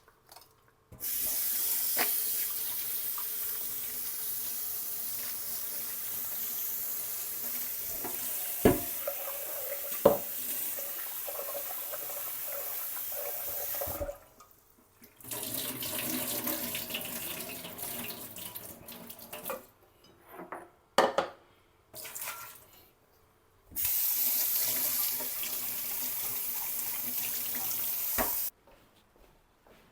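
Kitchen tap running into a sink while a cup is washed, with a couple of sharp knocks about a third of the way in. The water stops about halfway, runs again with rinsing and a few clicks, then runs steadily and is turned off suddenly near the end.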